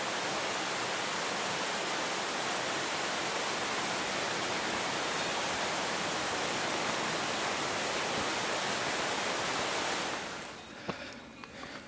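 Steady, even hiss at a constant level that fades out about ten seconds in, leaving a quieter background with a few faint ticks.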